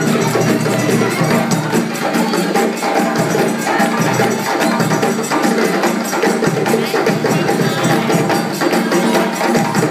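An ensemble of djembe hand drums playing live together, a fast, dense rhythm of sharp hand strikes at an even loud level.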